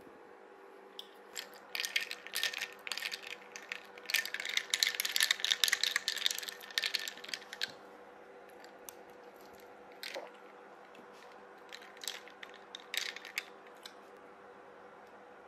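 Ice cubes clinking and crackling in a cup of iced matcha latte: dense runs of quick small clicks in the first half, then a few short bursts later.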